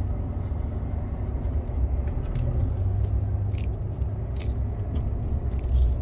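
Scania truck on the move, heard from inside the cab: a steady low engine and road rumble, with a few faint ticks.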